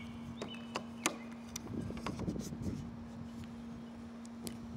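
Fingers pressing and working rubber roof-repair tape down around a van roof vent's screw heads: scattered light clicks and soft taps, the sharpest about a second in, over a steady low hum.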